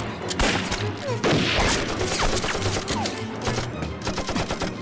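Film gunfire: a couple of heavy rifle shots in the first second and a half, then a rapid run of shots near the end, over dramatic background music.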